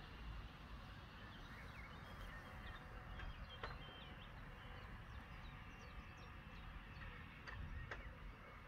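Faint outdoor ambience: distant small birds chirping here and there over a low rumble, with a few soft clicks.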